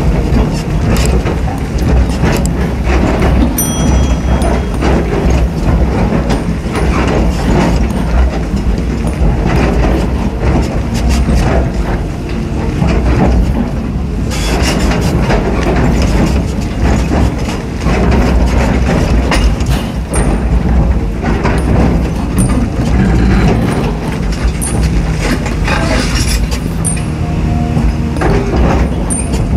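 Caterpillar 320D excavator working a bank: its diesel engine runs steadily under hydraulic load, with frequent irregular clanks and scrapes as the bucket digs into earth and stones.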